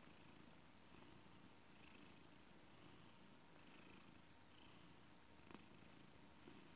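Blue British Shorthair cat purring softly while kneading a blanket, in a slow, even rhythm. A single small click comes about two-thirds of the way in.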